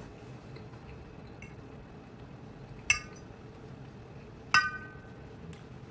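A metal fork clinking twice against a dish, about a second and a half apart, each clink ringing briefly.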